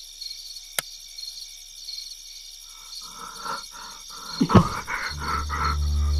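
Night ambience of crickets chirping steadily, with a sharp click about a second in and a sudden loud thud a little past four seconds. A low droning tone comes in about five seconds in and holds.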